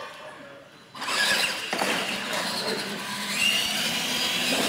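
Radio-controlled monster trucks launching about a second in: electric motors and gears whining as they drive off, with one whine climbing in pitch as a truck picks up speed.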